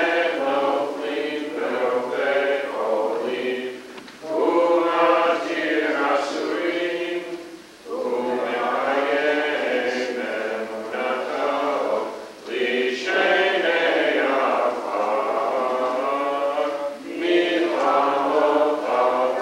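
Congregation singing a prayer together in a group chant, in phrases of about four seconds with brief pauses for breath between them.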